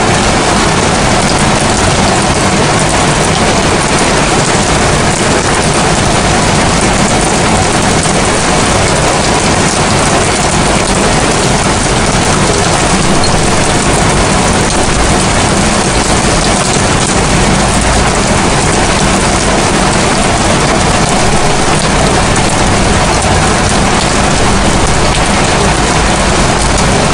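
Steady rain falling on rooftops, an even hiss without a break.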